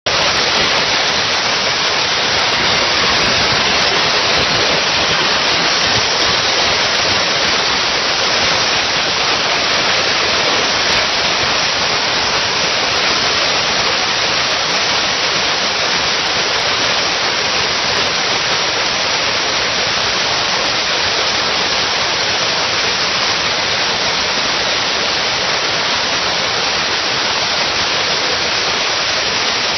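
Dustless (wet abrasive) blasting nozzle spraying a jet of water and abrasive against a steel car fender, stripping paint and rust. It makes a loud, steady hiss without a break.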